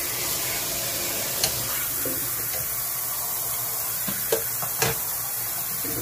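Steady rushing hiss of water, with a sharp click about a second and a half in and two more close together near the end.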